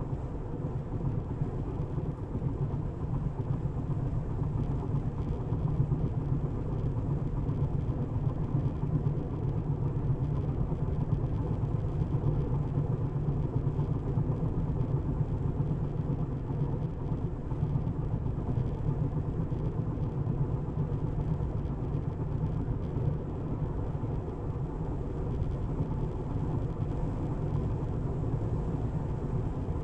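Steady low road and tyre rumble of a Tesla electric car driving along, with no engine note.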